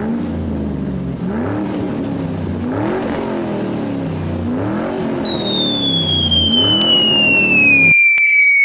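A truck engine revving up and falling back again and again, about every two seconds. It cuts off abruptly near the end. From about halfway, a high whistle slides steadily downward.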